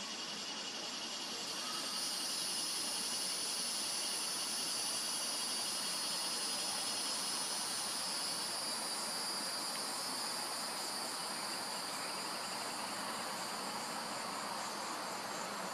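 Steady high-pitched drone of an insect chorus, a little louder from about two seconds in.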